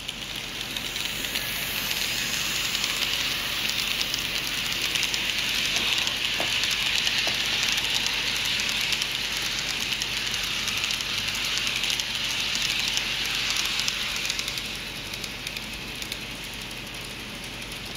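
N-scale model train running past on the layout track: a steady rushing whirr of small wheels on the rails, with rapid fine clicking over the rail joints. It fades about three-quarters of the way through as the coaches move on.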